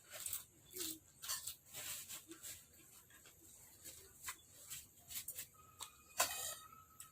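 Close mouth sounds of a person eating: scattered wet chewing and lip-smacking clicks, with a louder cluster a little after six seconds.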